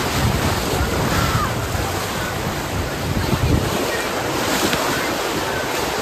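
Steady rush of white water churning around a river-rapids ride raft, with wind buffeting the microphone.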